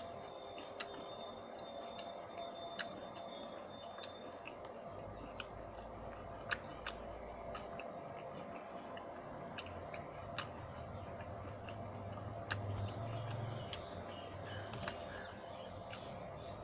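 A man chewing deep-fried snacks with his mouth closed: scattered sharp clicks and crunches, irregularly about one every second or two, over a faint steady tone.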